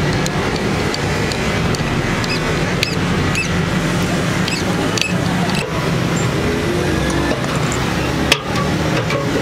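Steady street traffic noise throughout, with a few short sharp clicks of a steel rod against a bolted steel patch strip.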